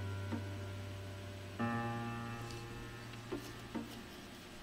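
Background music: long sustained low notes that fade slowly, a new one striking about one and a half seconds in. A few faint clicks sit under it.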